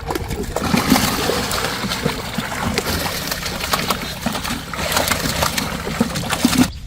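Water splashing and sloshing with many small clicks and knocks, cutting off suddenly near the end.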